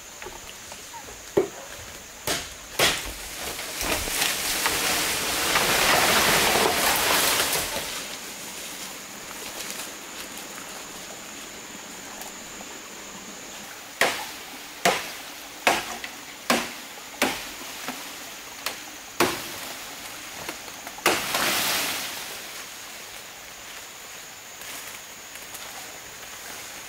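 Sharp knocks of a machete chopping bamboo, a few strokes early on and then a run of about seven strokes roughly one a second. Two longer swishing rustles of bamboo leaves and branches come between them.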